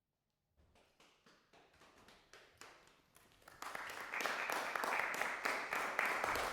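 Audience applause: a few faint, scattered claps begin about half a second in, then swell suddenly into full applause about three and a half seconds in.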